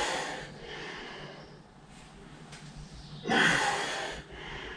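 A man's two heavy, effortful breaths, one at the start and one about three seconds later, as he strains while hanging his body weight from a knife stuck in sheet metal.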